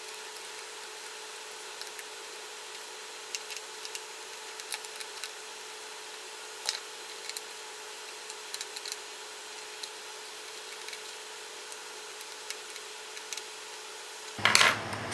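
Small screwdriver backing screws out of a metal laptop hard-drive carrier: a scattering of faint, irregular clicks and light metal ticks over a steady faint hum.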